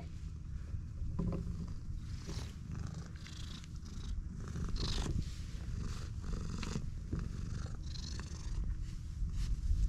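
A stray cat purring steadily while a hand strokes its back and head, with brief rustles of fur under the hand.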